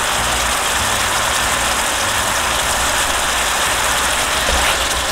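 Chicken stew simmering in a frying pan, bubbling and sizzling in a steady hiss over a low rumble.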